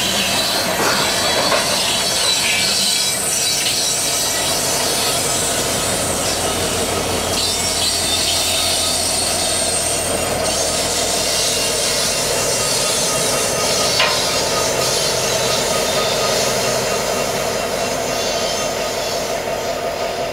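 Loaded coal hopper cars rolling by on curved track, steel wheels squealing, followed by the rear EMD SD70MAC diesel-electric locomotive running past and drawing away. A single sharp clank about 14 seconds in.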